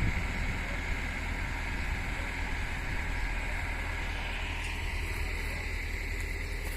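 Diesel engine of an amphibious excavator running steadily with a low drone.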